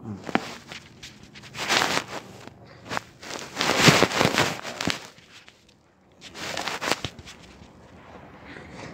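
Handling noise from a phone being moved about and set down on a shaggy carpet beside a metal table leg. It comes as three rustling, scraping bursts, with a few sharp knocks.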